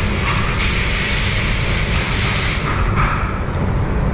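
Steady low rumble of running machinery, with a hiss laid over it from about half a second in until about two and a half seconds in.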